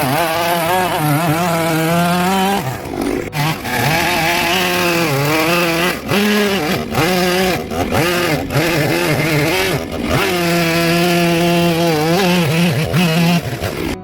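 Two-stroke chainsaw running at high speed while cutting into wood, its pitch wavering as it bogs under load and dropping briefly three times as the throttle eases.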